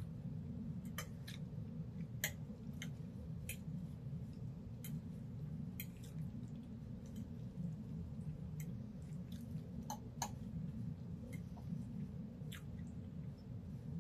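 Close-up eating sounds: chewing, with about a dozen sharp, irregular clicks of a metal fork against the plate, over a steady low hum.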